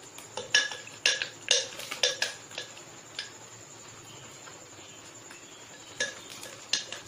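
Spoon clinking against a glass bowl while custard powder is stirred into cold milk: a run of sharp clinks in the first three seconds, a pause, then a few more clinks near the end.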